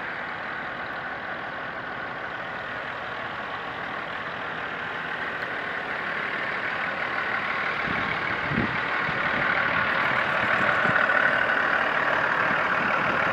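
Vehicle engine and road noise heard from inside the cab while sitting in slow traffic, growing gradually louder in the second half, with a few low knocks about eight seconds in.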